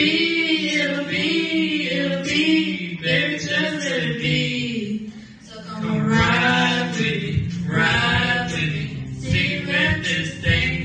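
Unaccompanied pop duet singing through handheld microphones, with long held notes and a short break in the voice about five seconds in.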